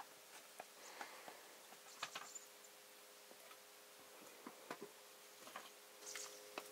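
Quiet eating sounds over near silence: faint, scattered clicks and taps at an irregular pace.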